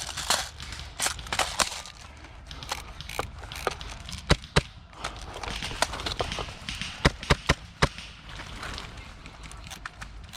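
Airsoft fire: scattered sharp cracks, with several in quick succession about seven seconds in, over a low steady outdoor background.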